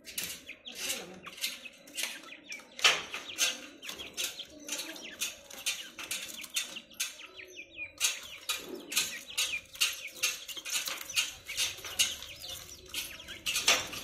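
Grey francolin pecking at papaya held in the fingers: an irregular run of short sharp clicks and taps, several a second, with a few faint high bird chirps between them.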